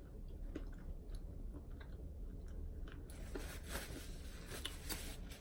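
Faint chewing: scattered soft mouth clicks and smacks of someone eating food.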